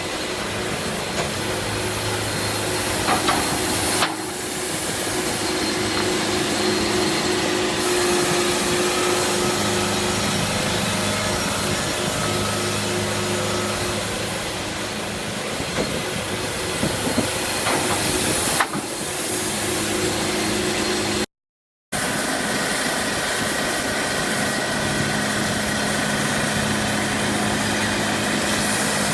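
Sawmill machinery running: a steady engine drone under a loud, continuous hiss. The sound changes abruptly twice and cuts out completely for about half a second about two thirds of the way through.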